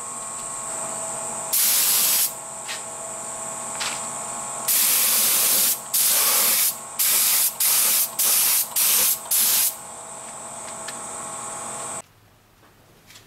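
Gravity-feed spray gun spraying a 60% gloss lacquer top coat in trigger bursts: a few longer sprays, then a quick run of six short bursts. A steady fainter hiss and hum runs beneath and cuts off suddenly near the end.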